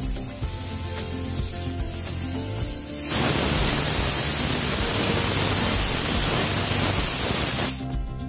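Background music, then from about three seconds in a loud, even hiss of a gas stove burner flame with a brinjal (eggplant) charring directly over it. The hiss cuts off suddenly shortly before the end as the music comes back.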